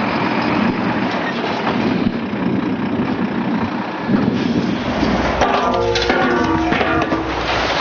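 Concrete mixer truck's diesel engine running as the truck drives onto soft sand. About four seconds in, a deeper, louder low rumble comes in.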